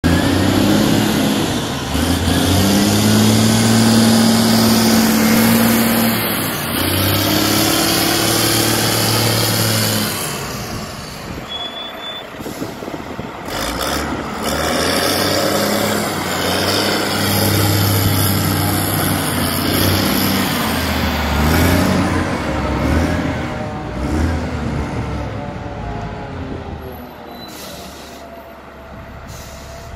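Caterpillar 966C wheel loader's diesel engine running, its speed rising and falling several times as it is revved, and softer near the end.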